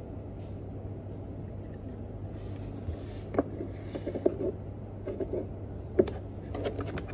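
Plastic buttons on a small digital timer clicked repeatedly as it is set, in short runs starting about three seconds in, over a steady low hum; a soft rustle comes just before the clicking.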